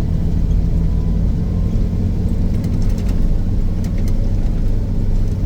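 Snowcat's diesel engine running steadily under load while it rolls snow and pulls a grooming drag, heard from inside the cab, a deep even drone with a few faint rattling ticks.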